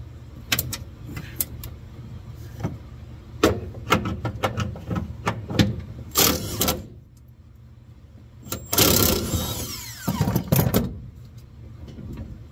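A wrench working on car door hinge bolts: scattered metal clicks and knocks, then two louder stretches of scraping and rattling, the longer one near the end, over a steady low hum.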